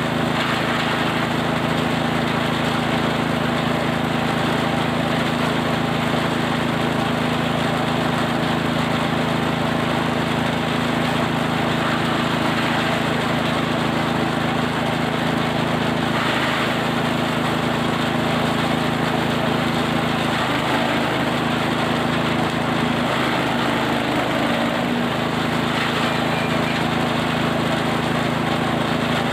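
Small engine-driven forage chopper running steadily while grinding cattle feed. Its note wavers for a few seconds about two-thirds of the way through.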